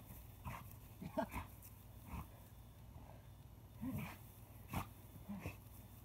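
Puppy giving short growls and grunts in a tug-of-war over a rope, with scuffling in dry grass between them.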